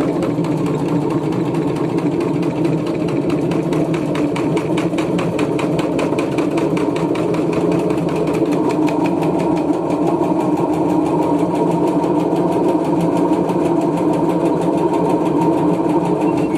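LG washing machine running with its drum turning, a steady hum with a rapid, even knocking as the machine shakes and jumps in suds lock.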